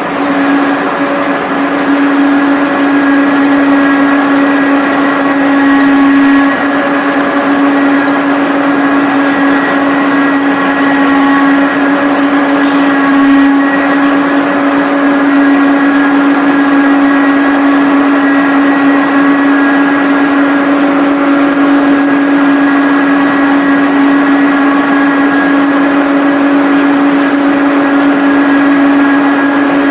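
Vertical ring rolling machine running steadily as it rolls a red-hot ring: a constant loud machine hum with a fainter high whine above it.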